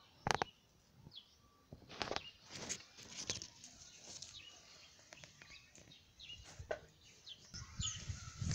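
Scattered short bird chirps, with rustling and a few sharp knocks from the phone brushing and being handled among leafy garden plants.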